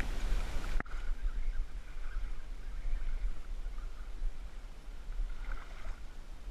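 Wind rumbling steadily on a hat-mounted camera's microphone, with one sharp click just under a second in.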